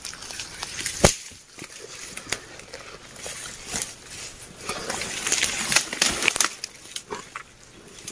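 Dry bamboo leaves and twigs rustling and crackling, with a sharp snap about a second in and a run of crisp clicks and crackles around five to six seconds.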